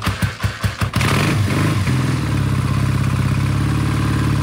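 A 1955 BSA A10 Super Flash's 646cc parallel-twin engine is kickstarted and catches on the first kick. A few separate, uneven firing strokes pick up into continuous running, rev briefly, and settle into a steady idle.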